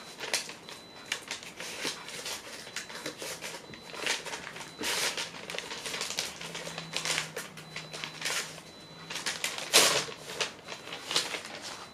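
Brown kraft paper mailer envelope rustling and crinkling in the hands as it is opened, in a run of irregular crackles. The loudest rustle comes near the end as a magazine is slid out of the envelope.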